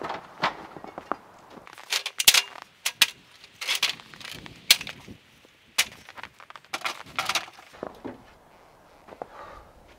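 An irregular series of sharp knocks and crunches, some in quick clusters, roughly one a second.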